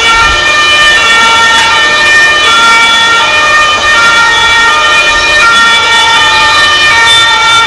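German two-tone emergency siren (Martinshorn), alternating between two pitches, from a fire engine in traffic.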